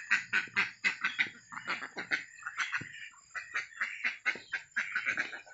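A flock of domestic laying ducks quacking, a rapid run of short calls one after another.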